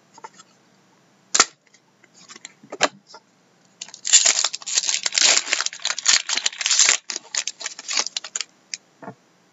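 Foil wrapper of a trading-card pack being torn open and crumpled: a dense crackling rustle lasting about three seconds, starting about four seconds in. A few sharp clicks and taps of cards being handled come before and after it.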